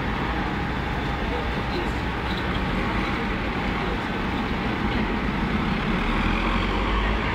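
Steady low rumble of idling vehicle engines, with people talking.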